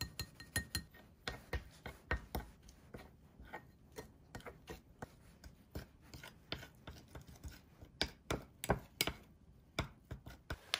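A spoon tapping and scraping against ceramic bowls while wet cat food is stirred. A quick run of small ringing clinks comes in the first second, then irregular taps and scrapes continue.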